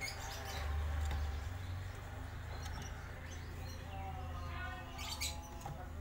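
Caged hill myna giving soft chirps and a short call near the end, over a low rumble that swells about a second in.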